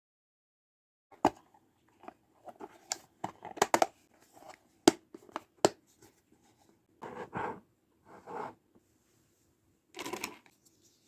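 Unboxing of plastic toy pieces and packaging: a run of sharp clicks and taps, then three short bursts of tearing or crinkling.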